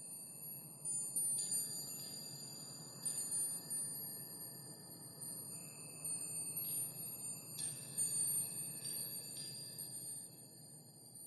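Soft, high, bell-like chime notes, struck now and then and left to ring on together, over a low steady hum.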